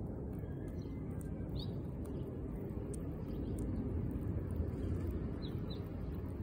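Outdoor background: a steady low rumble with a few faint, short bird chirps, one early and two close together near the end.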